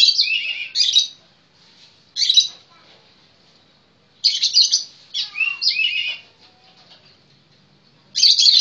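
Magpie robin (kacer) singing: short, loud, clear whistled phrases in bursts with pauses between them.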